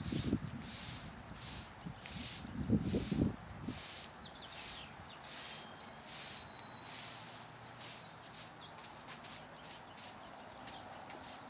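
Stiff broom sweeping across a concrete driveway in quick repeated strokes, about two to three a second, working crack-filler into the cracks.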